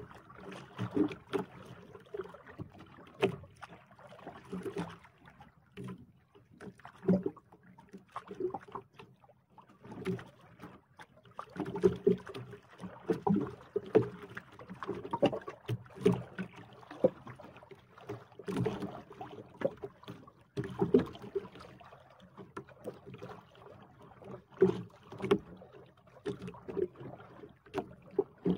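Water slapping and knocking against the hull of a small outrigger boat on choppy sea, in irregular thumps a few times a second.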